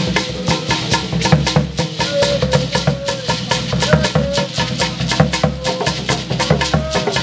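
Traditional Ghanaian shrine music: a skin-headed barrel drum and gourd rattles shaken in a fast, steady rhythm, with a wavering held note over it.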